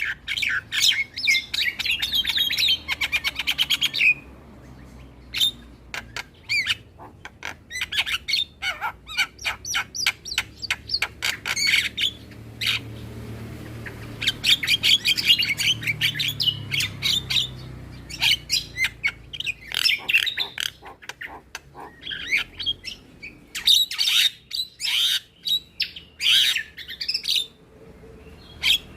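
Javan myna song: busy bouts of chattering whistles, squawks and rapid clicking trills, broken by two short lulls.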